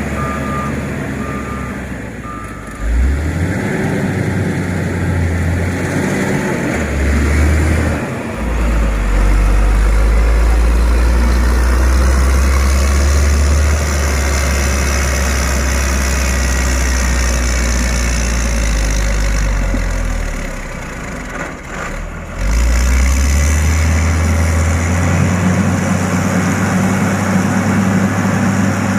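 Diesel engine of a heavy road-construction machine running under load, its low rumble rising and falling and dropping away briefly about three-quarters through before picking up again. A reversing alarm beeps steadily in the first couple of seconds.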